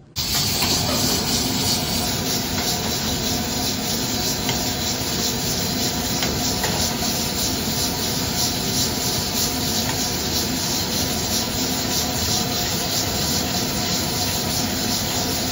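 Mutton frying in a shallow steel pan over an open fire, with a loud, steady sizzle that starts abruptly and holds evenly throughout.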